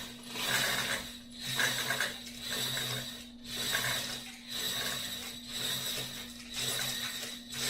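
A ratchet wrench worked back and forth on the Bridgeport milling machine, a run of ratcheting strokes about one a second over a steady low hum.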